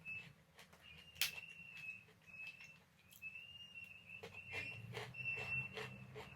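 Close-up crunching and chewing of Chips More crunchy chocolate chip cookies: a sharp crunch about a second in, then a quick run of smaller crunches near the end. A faint high thin tone comes and goes behind it.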